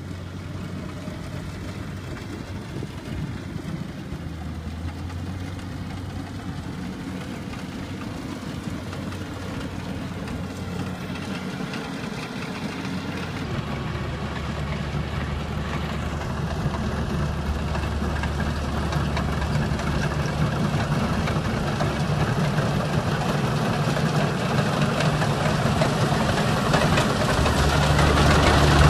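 Rice combine harvester's engine running steadily while it cuts through the paddy, growing steadily louder as the machine comes closer.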